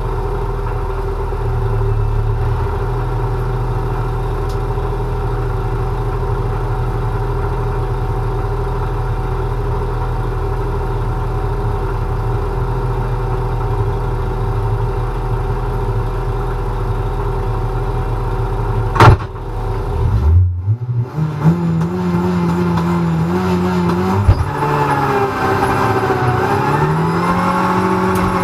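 Renault Clio Cup race car's turbocharged four-cylinder engine idling steadily with the car at a standstill. About two-thirds of the way in there is a sharp, loud clunk; then the engine revs up and the car pulls away, rising in pitch with a gear change a few seconds later.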